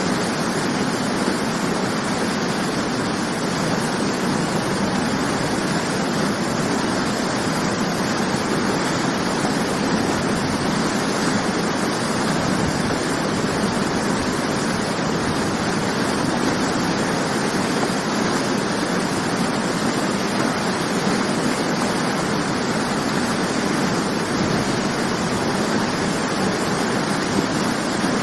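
Waterfall: water falling and crashing in a steady, even rush.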